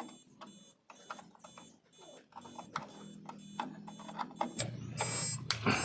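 Truck reverse warning beeper beeping evenly, a little over twice a second, a sign that reverse gear is engaged and the reverse circuit is live. A louder low rumble and clatter joins about four and a half seconds in.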